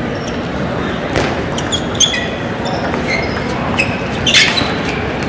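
Table tennis rally: the ball clicks sharply off bats and table a few times, the loudest near the end, with short squeaks of shoes on the court floor over the echoing background of a large sports hall.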